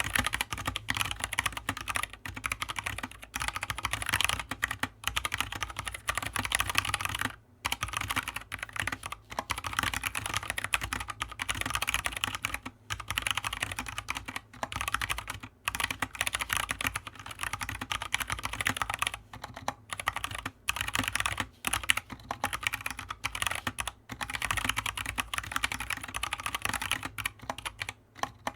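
Fast continuous typing on an Anne Pro 2 mechanical keyboard with Kailh Box Brown tactile switches, a dense stream of key clacks with a few brief pauses.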